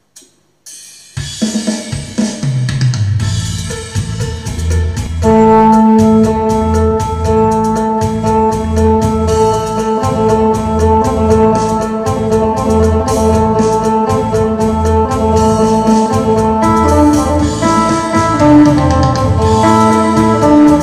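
Isan phin (three-string Thai lute) plucked in a lam phloen groove over a steady drum beat. The drums start about a second in, and the phin's sustained, ringing notes come in around five seconds in.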